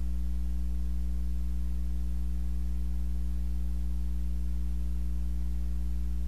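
Steady electrical hum on the recording: a low, unchanging drone with a few fixed higher tones stacked over it.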